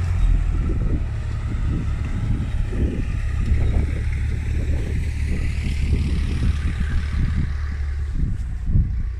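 IMT 542 tractor's diesel engine running steadily.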